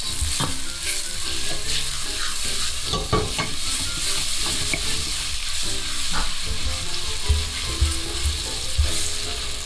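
Sliced white onions sizzling in hot olive oil in a stainless steel pan, freshly salted so they sweat. A wooden spoon stirs them with irregular scrapes and knocks against the pan.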